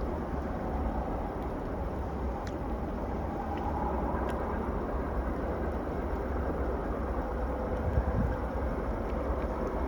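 Train passing by on the tracks, a steady rumble of its wheels on the rails.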